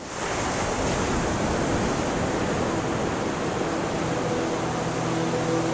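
Large storm-swell ocean waves breaking, a steady wash of surf noise. Low sustained music notes fade in over the last second or two.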